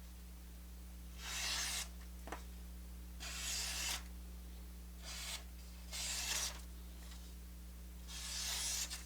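Maxace Sandstorm-K folding knife's K110 steel blade slicing through paper: about five quick hissing cuts, each under a second, as a test of the edge's sharpness.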